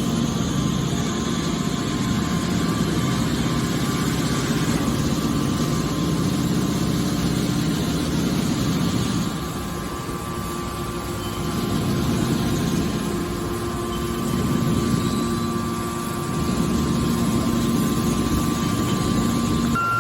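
Scrap metal push-out baler's hydraulic power unit running: a steady mechanical hum with a low rumble and a few held tones, dipping a little in level around the middle.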